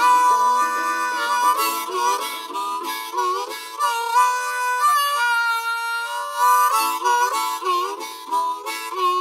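Instrumental outro of a country hip-hop song: a lead melody over sustained backing chords and a light beat.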